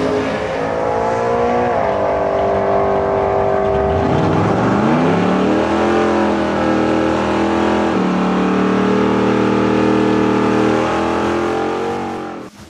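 Big-block Ford Mustang drag car running at full throttle down the strip. The engine note holds steady, drops and climbs back about four and a half seconds in, and steps again about eight seconds in as it shifts gears. The sound cuts off near the end.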